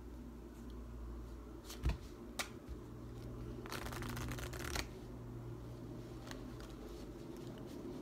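Deck of playing cards: two sharp taps about two seconds in, then a riffle lasting about a second as the two halves are shuffled together on the table. The shuffle is a Zarrow shuffle, a false table riffle.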